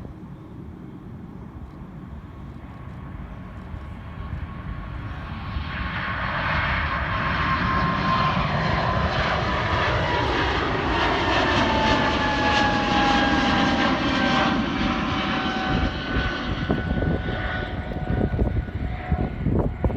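Airbus A220-300 jet passing during departure: its engines' whine and roar build up over several seconds, and the whining tones drop in pitch as it goes by, leaving a low rumble near the end.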